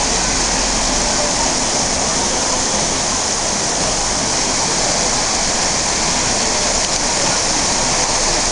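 Water rushing over rocks in a small stream: a loud, even hiss that runs without a break.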